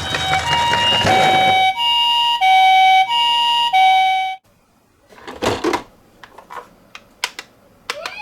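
Toy ambulance minicar's electronic two-tone siren, alternating a high and a low note each held about two-thirds of a second, until it cuts off suddenly about four seconds in. A few light clicks and knocks follow. Near the end the siren starts again with a rising tone.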